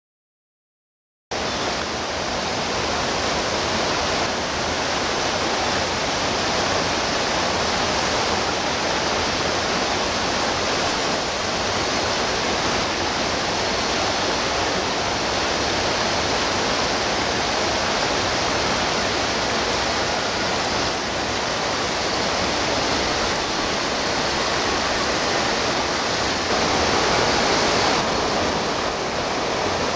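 Steady rushing of river water over rock, starting suddenly about a second in after silence.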